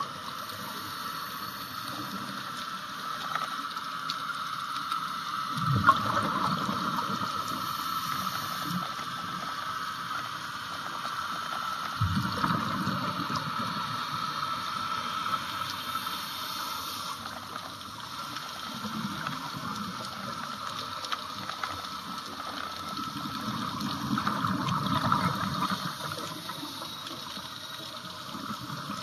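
Underwater sound of a scuba diver breathing through a regulator: a rush of exhaled bubbles roughly every six seconds over a steady underwater hiss.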